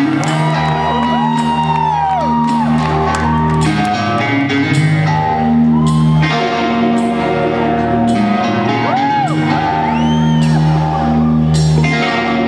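Live rock band playing in a large hall, heard from within the audience: long, held bass notes that change every couple of seconds under guitar, with crowd members whooping and shouting over it.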